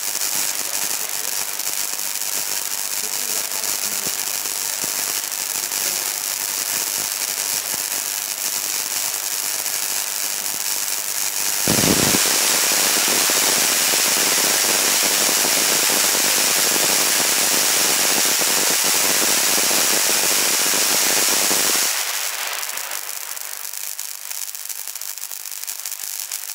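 High-voltage discharge at about 150 kV crackling and hissing steadily. About 12 seconds in it flares up with a brief low thump and grows louder as a branching sliding discharge spreads across a glass plate. It drops back to a quieter crackle about 22 seconds in.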